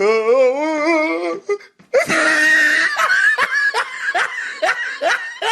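Laughter sound effect: a drawn-out voice with a wavering, warbling pitch for about a second and a half. After a short break comes a run of quick, high-pitched laughing pulses.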